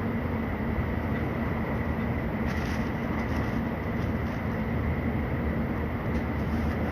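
Interior running noise of a Tokaido Shinkansen train heard inside the passenger cabin: a steady rumble with a faint, steady high whine.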